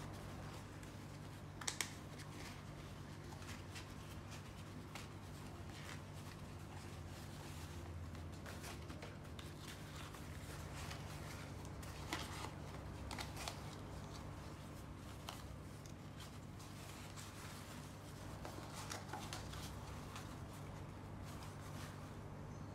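Faint rustling and crinkling of hands handling a dry suit sleeve and pressing tape around its cuff end, with a couple of sharp clicks about two seconds in. A steady low hum runs underneath.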